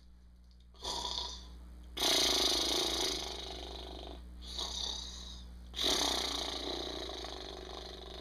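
A man's voice imitating a dog snoring: two long snores that start suddenly and fade slowly, each preceded by a short snorting breath.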